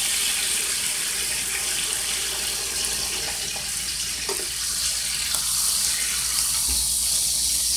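Steady sizzling of a seared chuck roast and its juices in a hot frying pan while the meat is handled with metal tongs, with a few light clicks.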